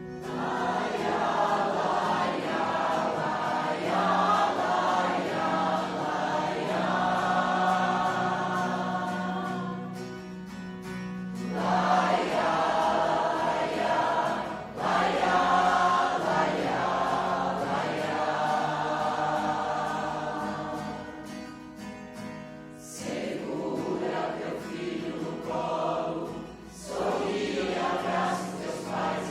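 Choir singing a song in sustained phrases, with a few short breaths between phrases.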